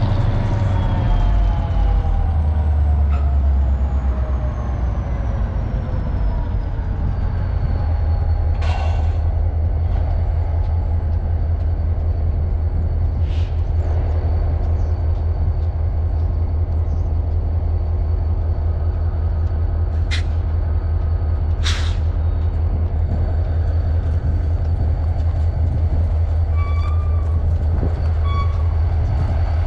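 EMD SD40-2XR diesel-electric locomotive's 16-cylinder two-stroke engine throttling down, its whine and engine note falling over the first several seconds, then running steadily with a deep rumble. A few short sharp hisses of air, typical of the air brakes, cut in around the middle.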